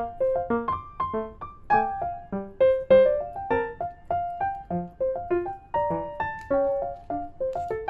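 Background piano music: a light, lively melody of short notes that ring and fade quickly.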